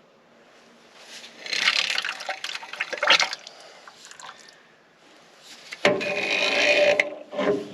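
Old oil being sucked out of a housing through a suction hose, heard as two spells of liquid slurping and sloshing, the second starting abruptly a little before the end.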